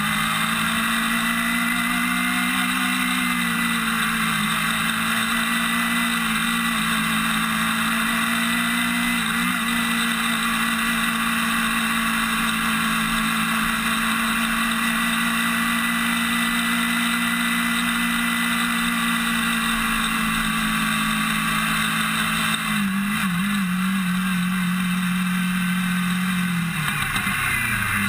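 Formula Student race car's engine heard from its own roll bar, held at a steady pitch under power for most of the time, wavering briefly and then dropping in revs near the end as the car slows. A steady hiss of wind and track noise runs underneath.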